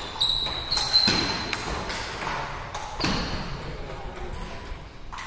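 Table tennis ball struck back and forth in a rally, sharp clicks of ball on bat and table, each with a short high ring, echoing off the hard walls and floor of a large hall. The hits come thick in the first three seconds, then thin out.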